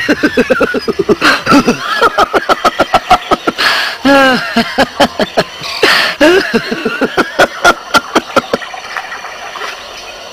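High, squeaky made-up voices of animated characters giggling and chattering in quick, pulsing syllables, several a second, tailing off near the end.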